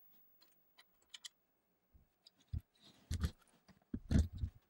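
Scattered light clicks and a few dull knocks, played at four times speed, from hands fitting a metal frame rail and its small screws to the base of a delta 3D printer.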